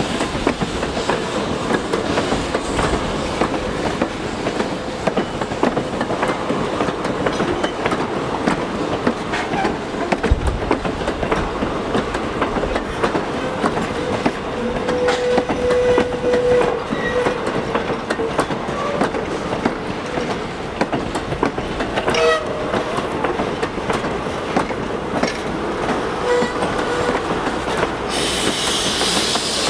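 Train rolling past, its wheels clicking steadily over the rail joints, with a couple of short squeals from the wheels. A loud hiss starts near the end.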